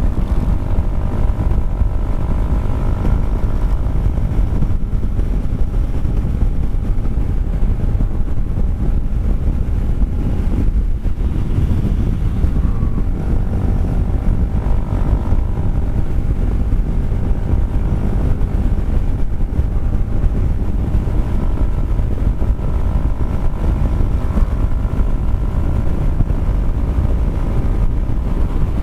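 Kymco Xciting 400i scooter's single-cylinder engine running at a steady, held speed on the highway, with wind rushing over the microphone.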